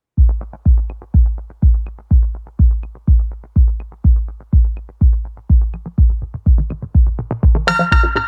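Electronic background music: a steady, heavy kick drum about two beats a second with light ticks over it. Fuller synth chords come in near the end.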